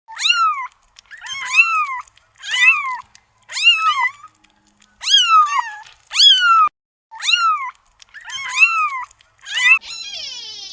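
A cat meowing repeatedly, about nine short high calls that each rise and fall in pitch, roughly one a second. A different, rougher sound follows near the end.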